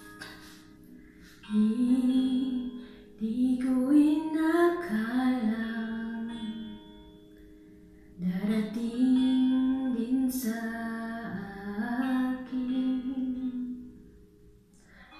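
A woman singing a melody over a plucked guitar accompaniment, in two long phrases with a short pause between them about halfway through.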